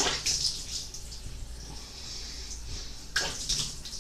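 Water splashing at a bathroom sink as hands cup water from the running tap onto the face, once at the start and again about three seconds in.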